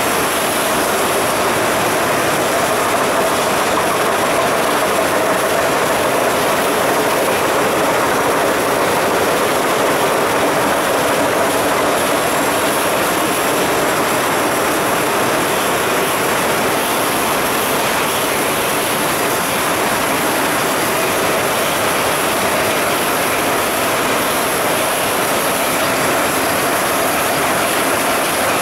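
A 23,000-cans-per-hour canning line running: a steady, loud clatter of aluminium cans jostling along conveyors, mixed with continuous machinery noise.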